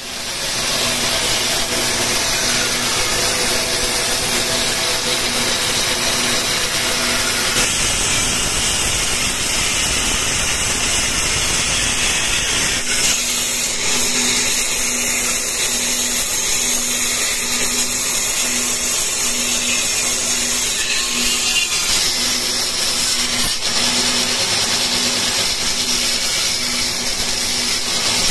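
Bandsaw running and cutting through a thick wooden block, a loud steady hiss of the blade in the wood over the low hum of the machine.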